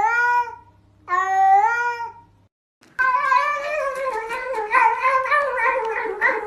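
A cat meowing in long calls that rise in pitch, two of them in the first two seconds; then, after a short break, a continuous wavering cat cry lasting about four seconds.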